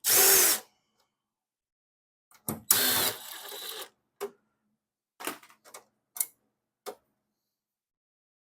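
A power driver running in two short bursts while backing out the screws of a car's rear valence panel, followed by several light clicks and clinks of screws and parts being handled.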